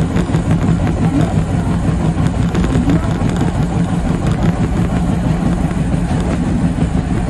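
Yoro Railway 7700-series electric train running at speed, heard from the driver's cab: a steady rumble of wheels on rail with a low hum underneath.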